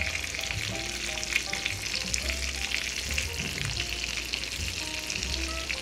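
Æbleskiver batter frying in bubbling butter in a cast-iron æbleskiver pan, a steady sizzle.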